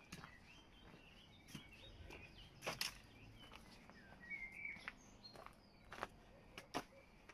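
Footsteps on a stony dirt path, a sharp step roughly every second, with faint bird chirps in the background.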